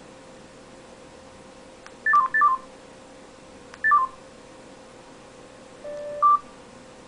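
Motorola cell phone's electronic beeps: three quick descending three-note chirps, then a low tone that steps up to a higher one near the end.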